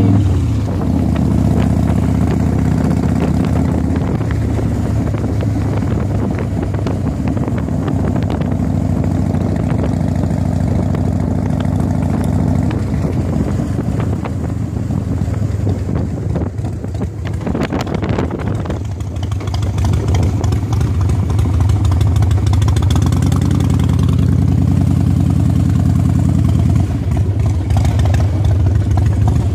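Motorcycle engine running as it is ridden, heard from the pillion seat, its note steady near the start and again in the last few seconds with a rougher stretch in between.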